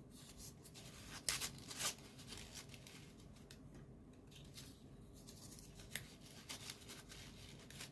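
Soft rustling of folded origami paper units being handled and slotted together, with a couple of brief louder rustles about a second and a half in.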